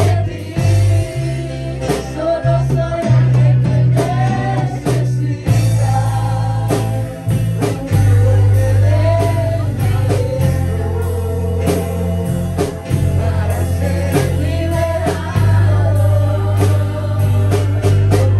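Live church worship band playing a song: women singing into microphones over electric guitar, bass guitar and a drum kit, with a steady beat and a strong bass line.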